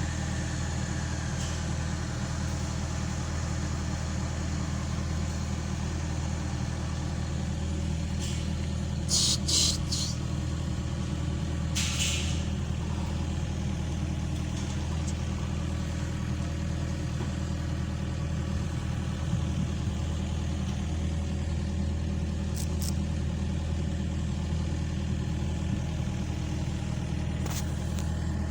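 Excavator's diesel engine running steadily, with a few short hisses about nine and twelve seconds in.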